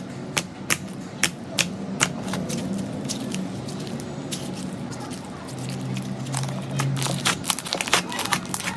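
Slime being squeezed and poked, giving irregular sharp clicking pops, thicker near the start and near the end.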